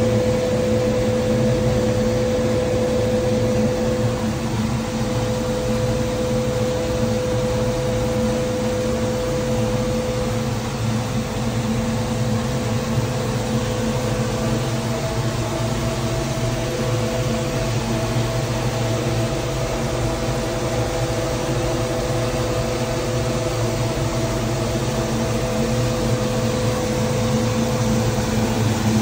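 Garrett TPE331-6 single-shaft turboprop engine running steadily at about 72% RPM, a loud constant drone with a turbine whine whose pitch shifts slightly higher about halfway through. The engine is running well, with no issues.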